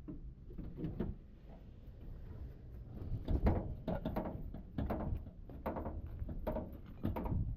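A series of irregular knocks and thuds, roughly one or two a second, with a louder cluster about three and a half seconds in.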